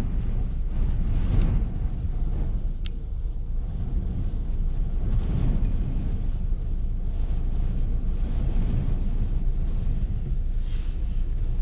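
Strong blizzard wind buffeting the microphone: a steady low rumble that swells and eases with the gusts, with a single brief click about three seconds in.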